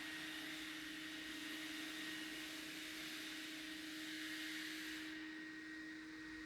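Unidentified machine noise coming through from the flat above: a steady, constant low hum with a fainter high whine over a hiss. The upper part of the hiss drops away about five seconds in.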